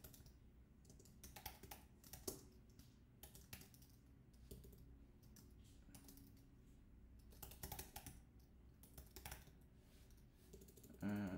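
Faint keystrokes on a computer keyboard: code being typed in short, irregular runs of clicks.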